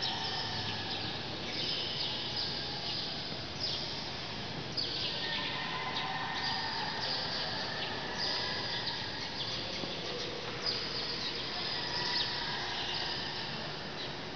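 High chirping animal calls, repeating about every second and a half, over a steady background hiss.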